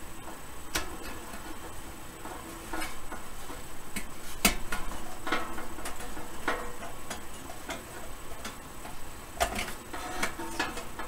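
Irregular clicks and taps of a clear plastic dial lens cover being handled and fitted into the sheet-metal cabinet of a Hallicrafters S-38 shortwave receiver, the sharpest knock about four and a half seconds in.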